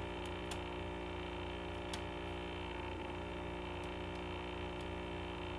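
Steady electrical mains hum with a few faint, brief clicks spread through it.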